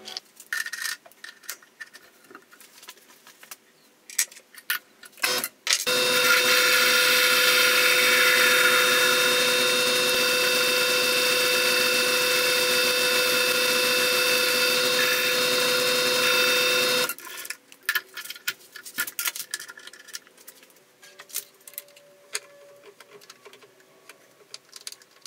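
Small benchtop metal lathe running for about eleven seconds, starting about six seconds in: a steady whine made of several fixed tones while it faces the end of a 1045 steel part. Before and after, scattered clicks and light metal taps as the part and tools are handled.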